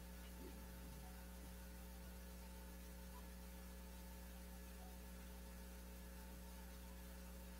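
Near silence apart from a steady low electrical mains hum.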